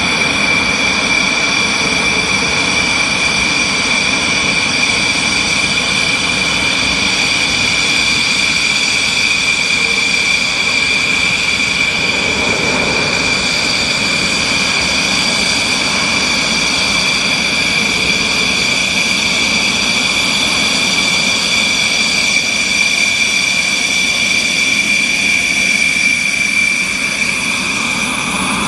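Jet engine running steadily: a high-pitched whine of several steady tones over a constant rushing noise, unchanging throughout.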